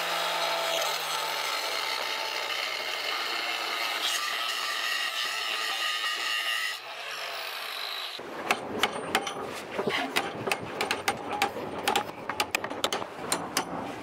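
Angle grinder cutting into steel flat plate clamped in a vise, its motor pitch sagging under load; it stops and spins down about seven seconds in. A quick, irregular run of sharp hammer strikes on the steel follows, bending the part-cut plate into a right angle.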